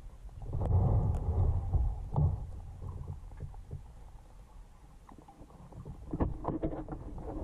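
Muffled water rushing and sloshing against a submerged camera housing, a low rumble that swells about half a second in, eases off midway and builds again near the end, with a few light knocks.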